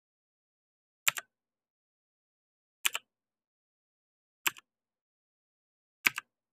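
Computer keyboard keys pressed one at a time: four keystrokes about a second and a half apart, each a sharp click as the key goes down followed at once by a softer click as it comes back up.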